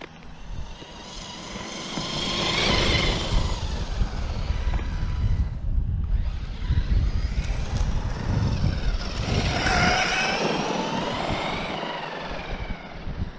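Traxxas X-Maxx RC monster truck on a 6S battery: its brushless electric motor and drivetrain whine as it speeds up, the whine rising and falling twice, about 2 s in and again around 9–10 s, over a low rumble of tyres on pavement.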